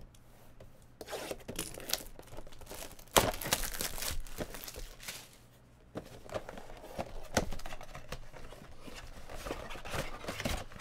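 Cellophane wrapping crinkling and tearing as a 2017 Bowman Platinum baseball card box is unwrapped, then its cardboard flaps rustling as it is opened. There is a short pause about halfway through.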